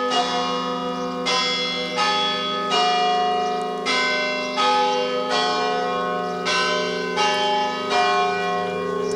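Church bells ringing: several bells of different pitches struck in turn, about two-thirds of a second apart in a repeating run of three strokes then a short pause, over the long sustained hum of the bells.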